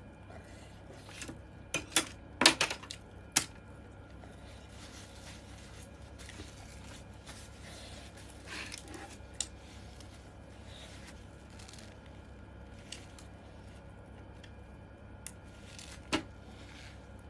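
A spoon or fork clinking against a bowl while eating: a cluster of sharp clicks about two to three seconds in and one more near the end, quiet in between.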